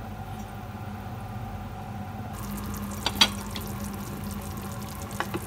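Pot of pork sinigang broth bubbling at a boil over a steady low hum. A little over two seconds in, the bubbling turns louder and brighter as the uncovered pot is heard, with a sharp metallic clink about three seconds in and a few light ticks near the end.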